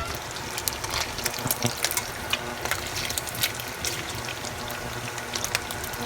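Bacon sizzling in a frying pan: a steady hiss with many small, irregular crackles and pops.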